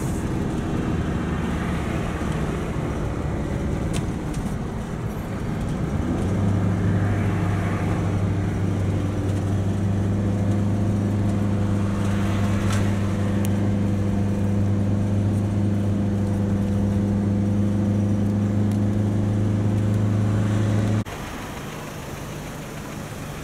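Steady road and engine noise inside a moving car's cabin, with a constant low drone while it cruises. Near the end it cuts off suddenly and gives way to quieter traffic sound.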